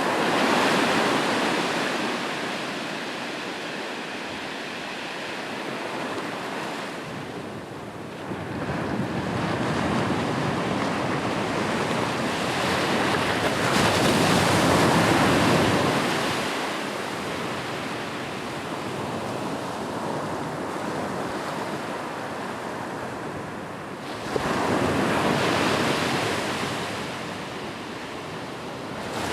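Ocean surf breaking on a shore: a steady wash of waves that swells and ebbs, with three big surges roughly ten seconds apart.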